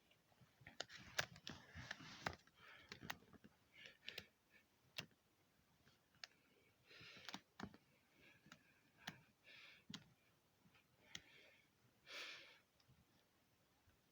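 Faint sharp clicks and short breathy hisses every couple of seconds.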